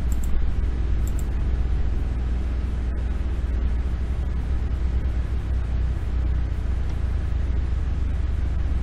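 Steady low hum under an even noisy hiss, with two faint short ticks in the first second or so.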